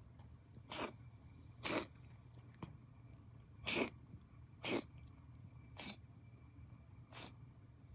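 A Munchkin cat reverse sneezing: six short, sharp, noisy inhalations through the nose, roughly a second apart and slightly uneven, the loudest in the middle of the run.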